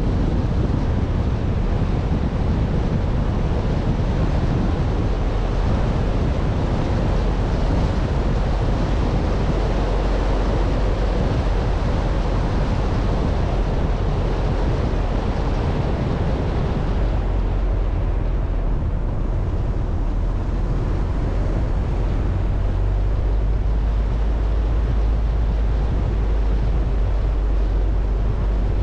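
A car driving: steady wind rush on the microphone over a heavy low rumble of road and engine noise. About two-thirds of the way through the higher hiss fades while the rumble carries on.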